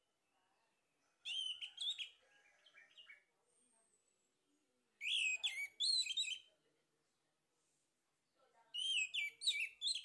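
Male orange-headed thrush singing: three bursts of quick, varied whistled notes, each a second or two long, a few seconds apart.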